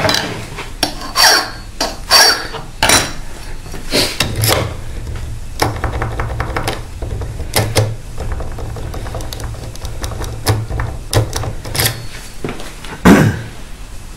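Key blank being wiggled and worked in an Asec profile lock cylinder clamped in a bench vise, with irregular metallic clicks and knocks as it is turned against the pins to raise impression marks. The loudest knock comes near the end.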